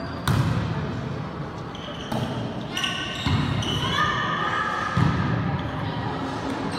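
Volleyball being struck and thudding on a gym floor, several separate sharp hits, with young players' voices calling in between.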